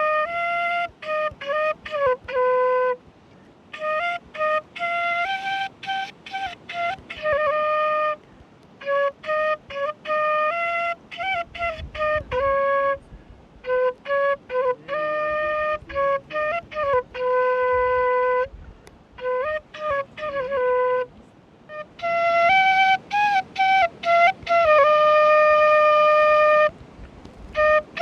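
A solo flute plays a melody in short phrases of held and sliding notes, with brief pauses between the phrases.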